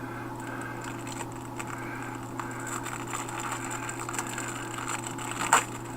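Steady electrical hum in the room under faint rustling and light ticks of trading cards being handled, with one sharp click near the end.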